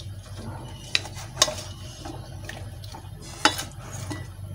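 Spatula stirring raw-mango pieces and green chillies in a pan, knocking sharply against the pan three times, over a faint frying sizzle and a steady low hum.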